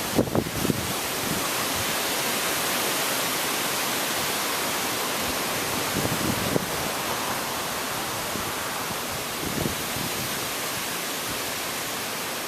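Strong storm wind blowing steadily through trees, a continuous rushing noise, with a few brief low rumbles of wind on the microphone.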